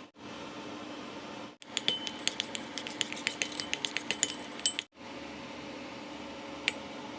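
A metal utensil clinking rapidly against a dish, about eight sharp clicks a second for some three seconds, over a steady low hum.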